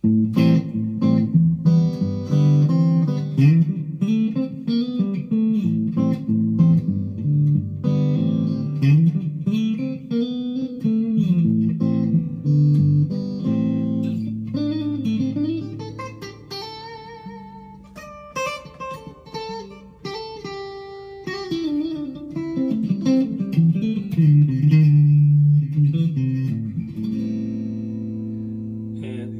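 Monoprice Indio Cali Classic Strat-style electric guitar played through a small amp with the neck-and-middle pickup combination selected: runs of single notes with string bends, and chords, ending on a held chord that slowly fades. The in-between position is considerably brighter than a real Strat would be.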